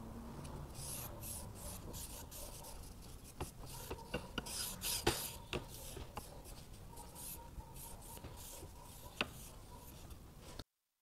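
A cloth rag wiping wood stain onto a thin wooden strip: a run of faint rubbing strokes with a few light clicks and knocks of the wood. The sound cuts off suddenly near the end.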